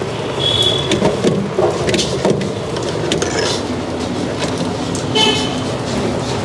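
Busy roadside eatery din: road traffic and background chatter, with scattered clinks of steel serving ware and two short high tones, about half a second and five seconds in.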